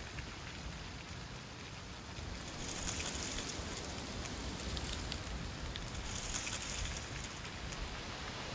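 Wind blowing through trees with dry autumn leaves rustling, a steady hiss that picks up into stronger gusts about two and a half seconds in.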